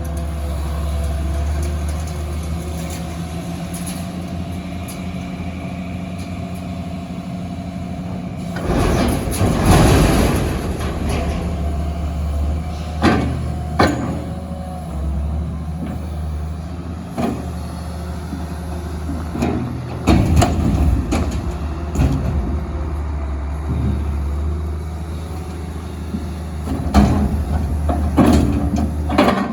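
Heavy diesel engine running steadily, with metal banging and crunching at intervals: a long clattering crash about eight seconds in, then separate knocks and bangs.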